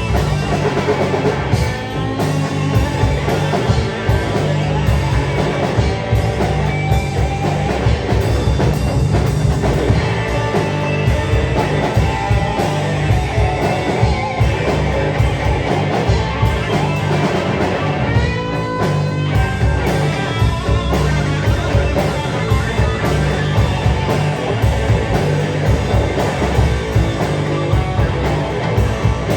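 Live rock band playing loudly, with guitar and drum kit; a run of sliding guitar notes comes about two-thirds of the way through.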